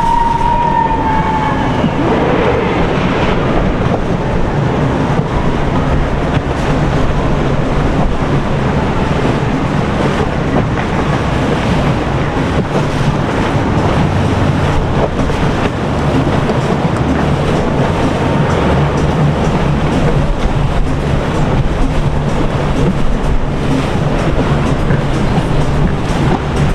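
Boat engine running steadily under a loud, dense rushing noise.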